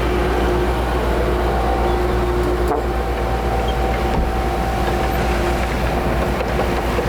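Heavy diesel earthmoving machinery running steadily under load, a deep engine rumble with a steady whine over it.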